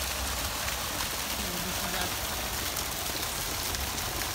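Fountain water pouring in strong streams and splashing steadily into a stone basin.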